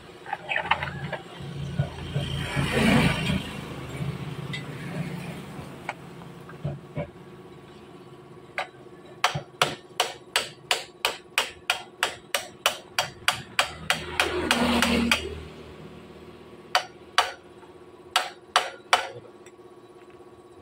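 Hammer blows, first in a steady run of about two strikes a second, then a few scattered strikes near the end. Two short rushing noises come before and between them.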